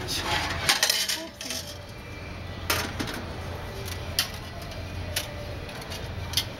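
Light metallic clinks and clicks, about half a dozen at uneven intervals, over a steady low hum.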